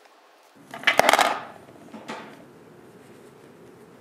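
A small plastic toy item drops through the slot of a toy recycling bin and clatters into the plastic bin about a second in, followed by a fainter knock a second later.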